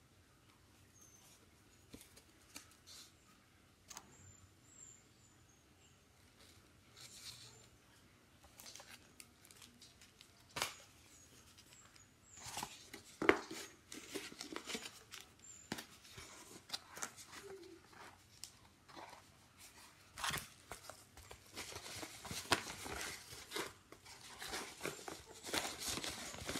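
Hands handling a phone case and a cardboard box: scattered light clicks and taps at first, then from about twelve seconds in, busier rustling, scraping and sharp taps of cardboard and packaging.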